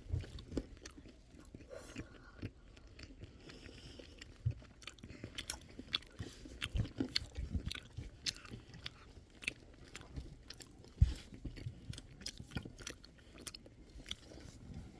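Close-up eating sounds of crunchy sweets: irregular crackly bites and chewing. A single low thump about eleven seconds in is the loudest sound.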